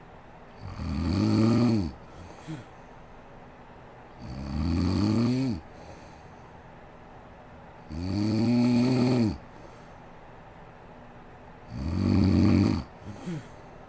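A sleeping woman snoring: four long snores about four seconds apart, each lasting over a second, with a short, fainter sound just after the first and the last.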